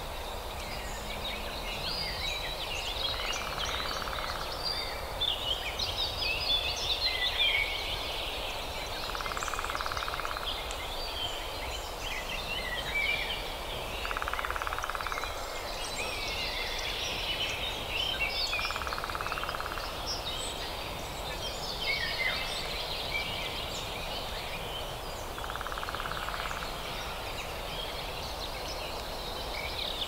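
Woodpecker drumming in a forest: five rapid rolls of beak taps on wood, each lasting about a second, spaced roughly five seconds apart, over a busy chorus of songbirds chirping and a steady background hiss.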